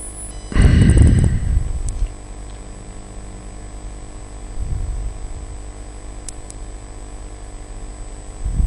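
Steady electrical hum from the recording setup, broken about half a second in by a loud low rumbling burst lasting just over a second, with a weaker one in the middle and another near the end, like breath or handling noise on the microphone.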